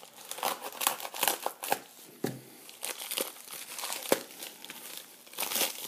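Crinkling and rustling of a mailing envelope being cut open with scissors and handled to get at the coin inside, with a sharp click about four seconds in.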